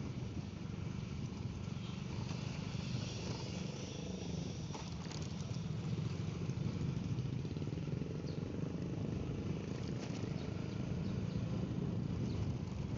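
Motorcycle engine running steadily while riding, with a steady hiss of wind and road noise.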